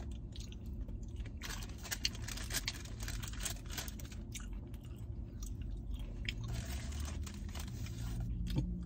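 A person chewing a mouthful of cheeseburger slider with pickles close to the microphone: irregular wet smacks and small crunches, over a low steady hum.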